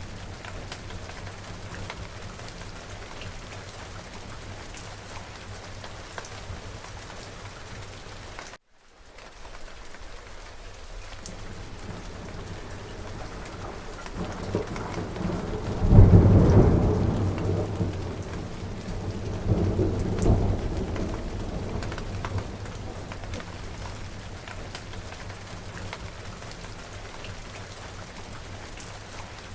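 Steady rain falling, with a thunderclap about halfway through that rumbles on and swells again a few seconds later before fading back into the rain. The sound cuts out for a moment about a third of the way in.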